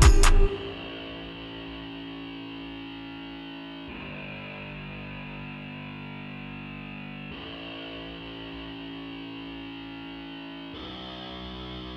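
Background music: a loud beat with heavy drum hits cuts off about half a second in, leaving quieter held chords that change about every three and a half seconds.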